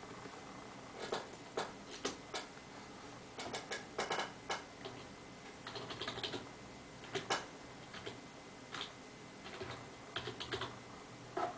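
Typing on a computer keyboard: irregular clusters of short keystroke clicks.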